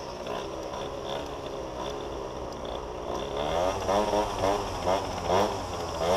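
Tuned two-stroke Yamaha Jog scooter engine from the rider's seat, running low at slow speed, then revved in several short rising bursts from about halfway through.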